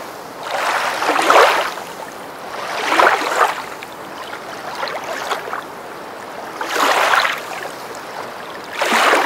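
Water waves washing in and drawing back, a rushing hiss that swells and fades in surges every couple of seconds.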